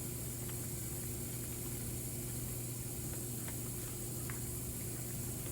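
Shower water running steadily, an even hiss over a low steady hum, with a few faint ticks.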